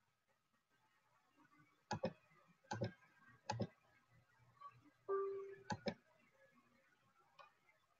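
Several sharp clicks, mostly in close pairs, with a short steady tone lasting about half a second about five seconds in.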